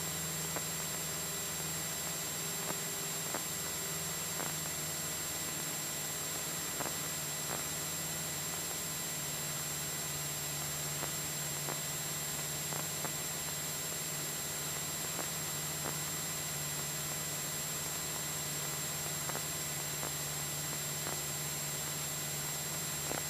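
Cessna 172SP's four-cylinder piston engine and propeller running steadily in flight, a constant low hum under an even hiss, with a few faint ticks.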